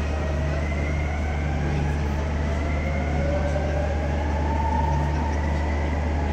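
Renfe Civia electric commuter train pulling out of an underground station, its traction motors whining steadily upward in pitch as it accelerates away, over a steady low hum.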